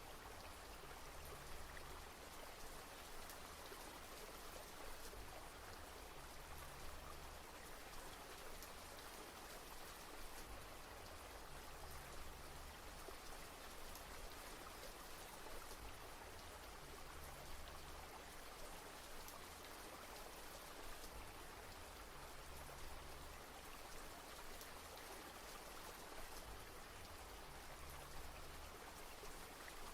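Recorded rain falling steadily and faintly, an even hiss of many drops that goes on without change.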